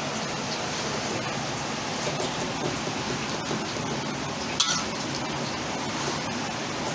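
Sambal and water spinach sizzling steadily in a pan as they cook, with one sharp metallic clink of a utensil against the pan about four and a half seconds in.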